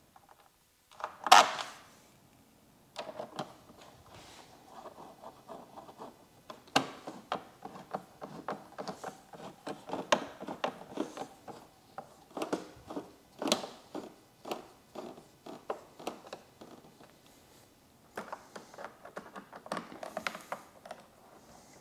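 Irregular metallic clicking and rattling of a hand tool driving bolts into a motorcycle's fairing, with one sharp knock about a second in.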